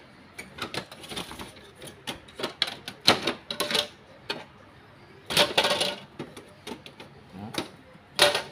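Plastic parts of a Brother HL-2130 laser printer's rear cover being unclipped and handled: a string of sharp clicks, snaps and knocks of hard plastic. The louder clatter comes in clusters about three and five and a half seconds in, with one sharp knock near the end.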